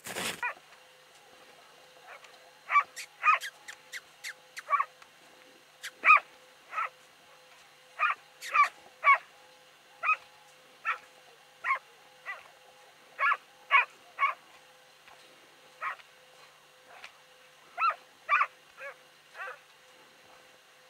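Hunting dog barking at a goose it has run down on the snow: a long series of short, sharp barks, one or two a second, sometimes in quick pairs or threes, starting a few seconds in.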